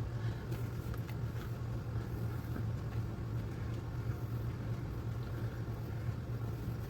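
Steady low background hum with a light hiss, and a few faint light clicks about a second in.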